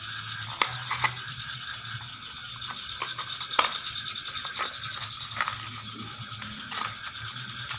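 Paper and foil packaging of a piston ring set crinkling and tearing as it is unwrapped by hand, in short irregular rustles and snaps. Behind it a steady chorus of frogs calling.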